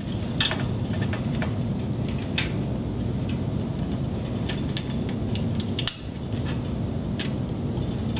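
Sharp little plastic clicks and ticks, scattered irregularly, as MPO fibre-optic connectors are handled and pushed into the adapters of a chassis blade. A steady low hum runs under them.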